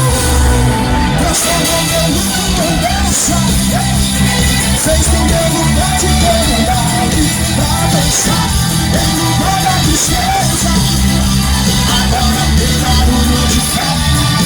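Loud amplified Christian worship music with singing voices over a steady heavy bass.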